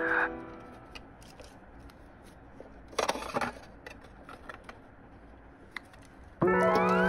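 Stickers being filed into a clear plastic drawer organizer: small plastic clicks and taps, with a short rustle of sticker sheets about three seconds in. Background music comes in loudly near the end.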